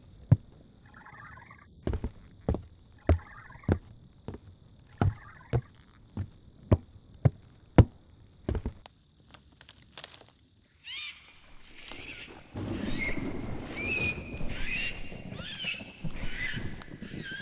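Synthesized sci-fi forest ambience: a high chirp repeating in short pulses over sharp knocks, about one or two a second, for the first ten seconds. Then a noisy rumble comes in with rising and falling animal-like calls.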